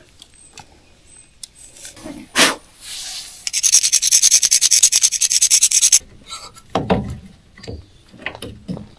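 A fast rasping scrape, rapid fine strokes running for about two and a half seconds, with a few knocks and scuffs before and after it.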